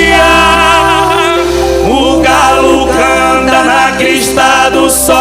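Music with singing: wavering sung voices over steady held chords and a continuous low bass.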